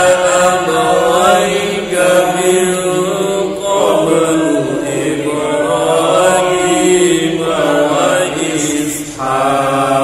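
A man's voice reciting the Quran in a slow melodic chant, murottal style, holding long ornamented notes and pausing briefly for breath about every two to five seconds.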